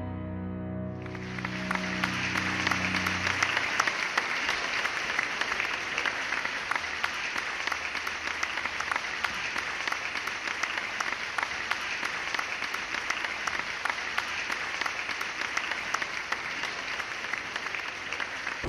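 A piano's final chord ringing out and fading over the first few seconds while audience applause starts about a second in. The applause carries on steadily and cuts off suddenly at the end.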